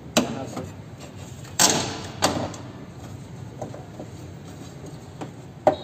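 Clunks and a rattling scrape from hands working loose parts inside a bare car door's metal shell; the loudest scrape comes about a second and a half in, followed by another knock and a few lighter taps.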